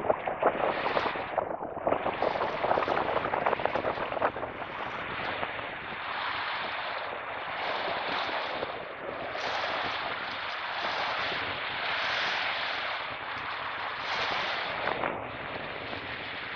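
Small wind-driven waves breaking and washing onto a gravel beach, swelling every couple of seconds, with wind buffeting the microphone. The first few seconds are rough and crackly.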